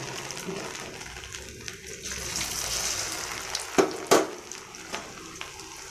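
Potato pieces deep-frying in hot oil, the oil sizzling and bubbling steadily around the freshly added, still-damp potatoes. Two sharp clicks come close together about four seconds in.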